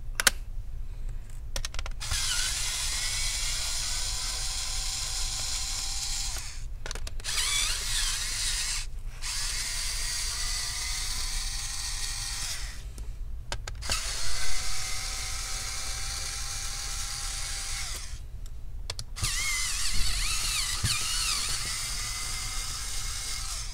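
Electric screwdriver running in about five bursts of a few seconds each, with short pauses between them, as it backs out the laptop's back-plate screws.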